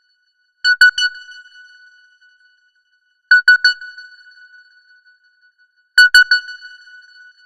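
Simple electronic phone ringtone: three quick strikes on one bell-like note, each dying away in a fading ring. The pattern repeats about every two and a half to three seconds, three times here.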